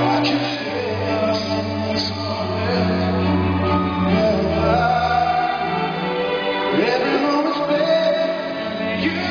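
Live band playing a slow power ballad, with a male lead voice singing over sustained bass notes and chords.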